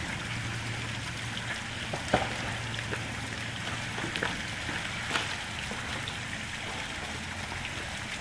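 Jeep Wrangler crawling slowly down over rocks: a steady low engine hum under a hiss, with scattered sharp clicks and cracks of rock under the tyres, the loudest about two seconds in and again about five seconds in.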